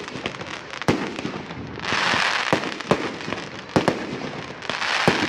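Aerial fireworks going off: about half a dozen sharp bangs of bursting shells, with two stretches of crackling hiss, one about two seconds in and one near the end.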